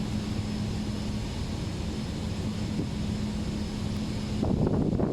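A steady engine drone with a constant low hum, overlaid by a rushing noise that swells louder and rougher about four and a half seconds in.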